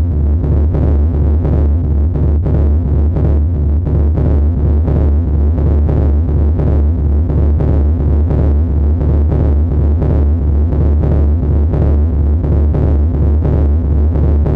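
Live electronic sound performance: a loud, heavy bass drone pulsing at an even, rapid rate, with a dense gritty texture above it.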